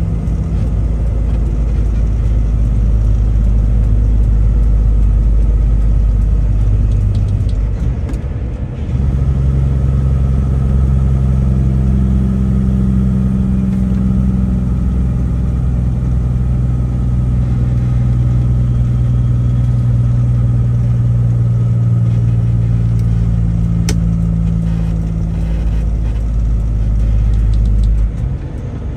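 Truck engine running steadily, heard from inside the cab. About eight seconds in the sound dips briefly and comes back at a different pitch, and it does so again near the end.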